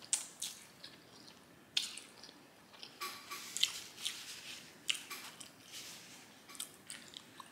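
A person chewing food close to the microphone, with wet smacking mouth sounds and irregular small clicks.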